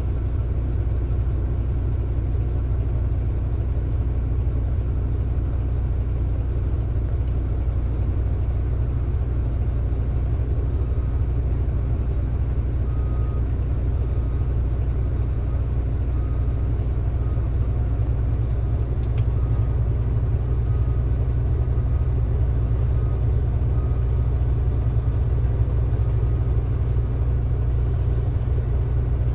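Heavy diesel quarry machinery running steadily: a deep, continuous engine rumble, with a faint repeated beeping through the middle stretch.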